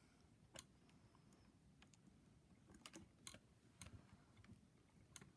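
Faint, scattered small clicks and taps of hard plastic parts being handled and fitted on a Hot Toys 1/6 scale Robocop action figure, about six clicks at uneven intervals over near silence.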